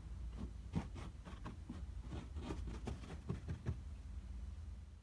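Paintbrush dabbing on a plaster rock face: a quick, irregular run of soft taps that stops about four seconds in, over a low steady hum.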